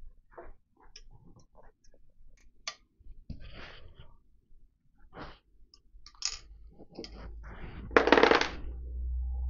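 Small metallic clicks and taps of screws and tools as the terminal box of an electric motor is unscrewed by hand, with a louder scraping rustle about eight seconds in.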